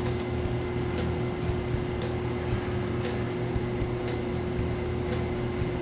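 A steady mechanical hum with a constant low tone and a few faint ticks.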